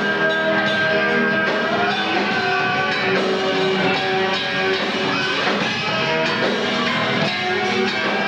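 Live rock band playing through amplifiers, with electric guitar to the fore.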